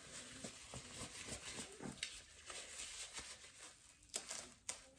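Disposable gloves being pulled on while a thin plastic cape crinkles and rustles, with a sharp click about two seconds in and two more near the end.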